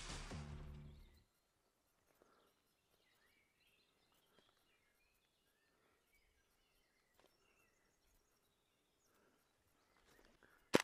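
Background music fading out in the first second, then near silence with a few faint bird chirps.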